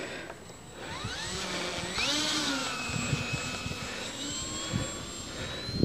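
FMS P-51B model plane's electric motor and propeller spooling up with a rising whine about a second in, then running steadily at high throttle for the takeoff, its pitch climbing again near the end. Wind buffets the microphone with low thumps.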